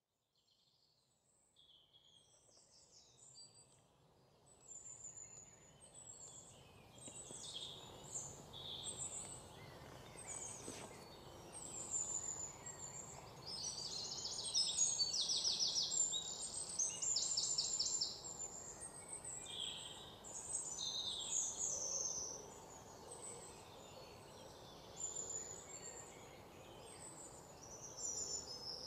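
Many small birds chirping and singing together over a soft background hiss, fading in from silence over the first few seconds. Fast rattling trills stand out and are loudest about halfway through.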